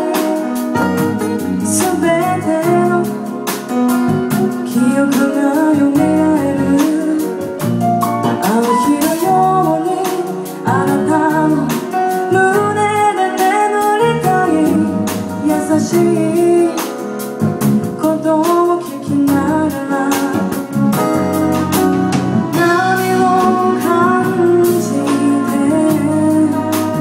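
A woman singing lead into a microphone with a live band: keyboard, acoustic guitar and drums.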